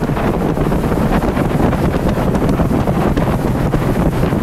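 Heavy wind buffeting the microphone of a motorboat running over choppy water. Beneath it is a steady rush of the boat's running noise and water along the hull.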